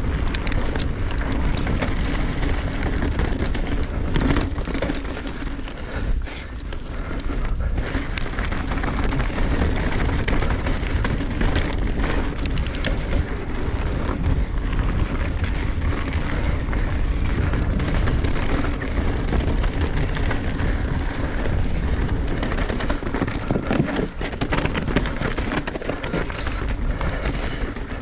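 A mountain bike riding down a rocky dirt trail, heard through a GoPro's microphone: steady wind rumble on the mic and tyre noise on dirt and rock, with frequent clicks and rattles from the bike over bumps.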